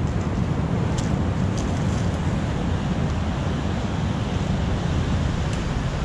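Rough sea surf washing over rocks, with wind rumbling on the microphone. A few light clicks come through, about a second in and again near the end.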